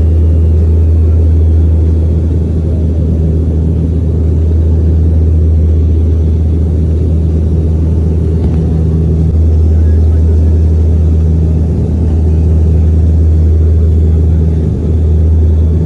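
Steady low rumble of a vehicle in motion, heard from inside it, with a constant deep drone.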